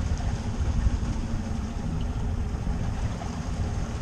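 Outboard motor running steadily under way, a low rumble with the hiss of the boat moving through the water.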